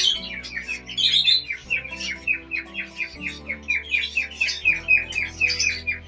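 Caged lovebirds and other small parrots chirping, a fast, regular run of short chirps about five a second, over a low steady hum.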